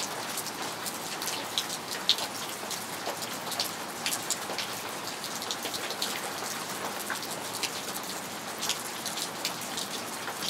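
Steady rain, with many separate drops striking sharply close by.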